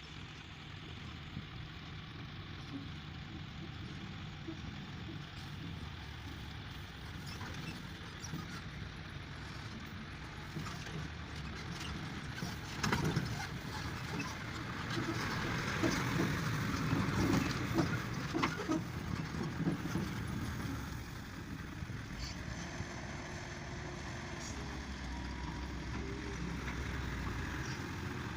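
A farm tractor's engine running steadily, growing louder about halfway through with some clatter and knocks, then easing back.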